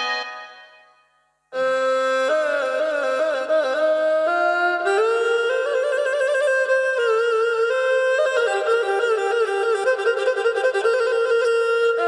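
Yamaha PSR-S770 arranger keyboard: an organ-like voice dies away, and after a short silence a melody starts about a second and a half in on a woodwind-type voice, with gliding, wavering notes over held harmony.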